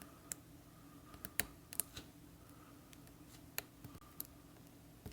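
Faint, irregular small clicks of a lock pick and tension wrench working the wafers of an Illinois DUO triple-bitted wafer padlock as it is being picked, about eight or nine clicks, with a small cluster between one and two seconds in.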